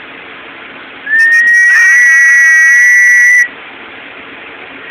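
A loud, steady, high-pitched whistling tone that starts about a second in, holds for roughly two and a half seconds and then cuts off, over a low background hiss.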